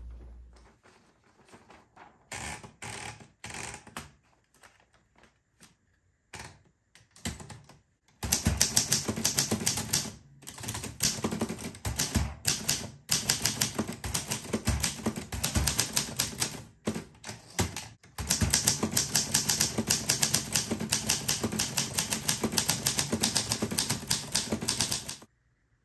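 Olympia SM3 Deluxe manual typewriter being typed on: a few separate clicks and knocks at first, then fast, steady typing from about eight seconds in, broken by a few short pauses, stopping just before the end.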